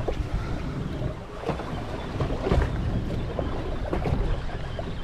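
Wind buffeting the microphone over the splash and lap of sea water against a small boat's hull, in irregular gusts and slaps.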